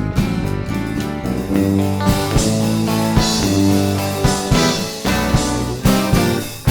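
Rock background music with guitar and drums, steady sustained notes under regular drum hits.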